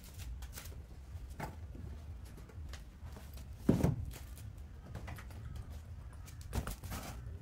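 Knocks and a dull thump of luggage being handled on a floor as a black soft-sided trolley suitcase is moved and set down, the thump just before halfway the loudest. A low steady hum underneath.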